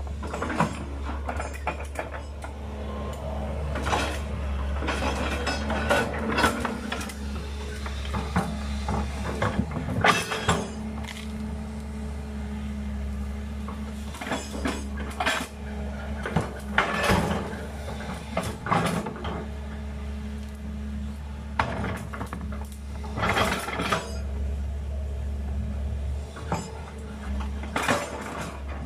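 Sumitomo SH210 hydraulic excavator's diesel engine running steadily, with repeated irregular metallic clanks and rattles from the machine as it works.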